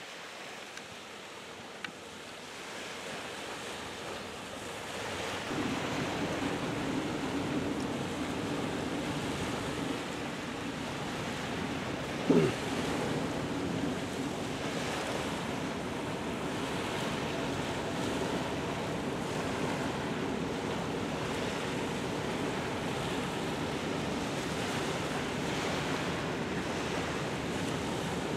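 Wind buffeting the microphone over water lapping at the shore. A low steady hum joins in about five seconds in, and a short, loud falling tone sounds near the middle.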